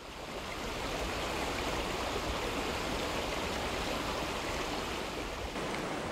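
Steady rush of a flowing stream, fading in from silence at the start.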